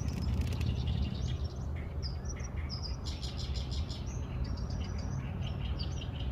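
Small birds chirping in quick series of short, high notes, over a steady low rumble.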